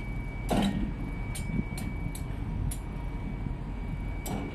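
Crawler crane's diesel engine running steadily under a lift, with a thin steady high whine and about six short clicks and knocks scattered through it.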